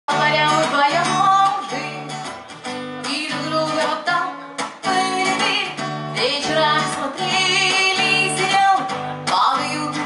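A woman singing over an acoustic guitar played live.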